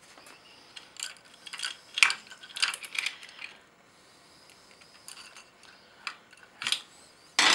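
Metal clinking and cam chain links rattling as the exhaust camshaft and its timing chain are fitted into a Triumph Daytona 675 cylinder head. A run of light clinks comes in the first few seconds, then a pause, then a few sharper clicks near the end.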